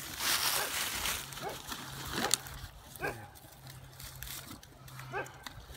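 An animal whimpering in four short calls that fall in pitch, with one sharp click a little over two seconds in, over a faint low hum.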